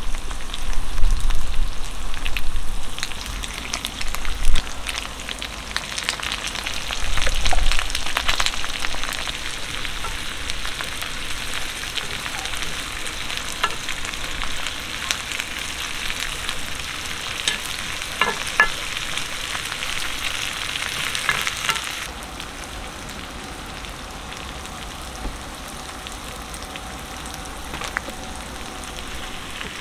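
Food sizzling in a frying pan while being stirred, with scattered clicks and taps of a utensil against the pan. The sizzle dies down markedly about two-thirds of the way through. There are a few low thumps early on.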